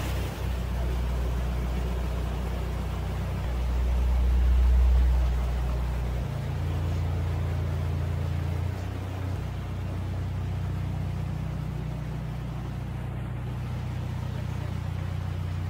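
Narrowboat's inboard diesel engine running at low revs as the boat moves out of a lock, its note shifting a few times as the throttle is worked: loudest from about four to six seconds in, then changing again around six and nine seconds.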